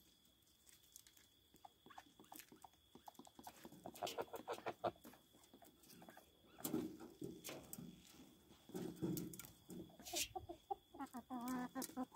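A flock of chickens clucking softly in short calls every few seconds, with scattered light clicks between and a wavering call near the end.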